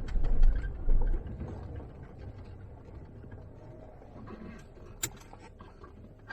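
Low rumble of a vehicle, loud and uneven for about the first second, then fading to a quieter low hum with a few light clicks. Cuts off abruptly near the end.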